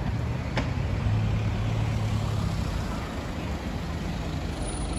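City street traffic: a road vehicle's engine runs with a low drone over steady road noise, the drone loudest in the first half. A single sharp click comes about half a second in.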